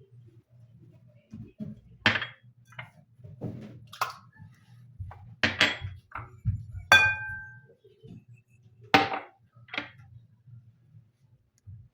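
Hard clinking and knocking of dishes being handled: about six separate strikes, one a little past the middle ringing briefly.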